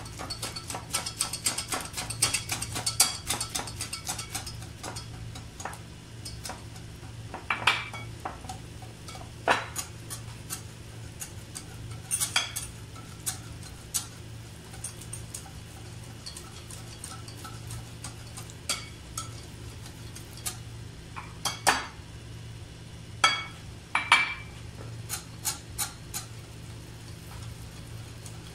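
Batter being beaten by hand with a whisk in a glass bowl, the whisk clicking and scraping against the glass as flour is worked in. The clicking is fast for the first few seconds, then slows to scattered taps with a few louder scrapes.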